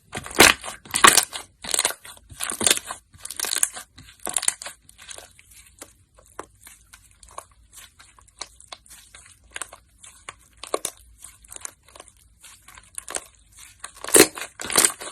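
Slime being squeezed and pressed by hand, crackling and crunching in quick bursts. The bursts come thick and loud over the first few seconds and again near the end, with lighter crackles between.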